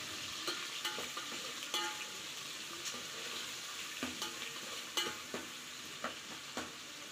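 Onions, garlic and curry leaves sizzling in hot oil in a metal pot as they are sautéed, stirred with a metal ladle that scrapes and knocks lightly against the pot several times.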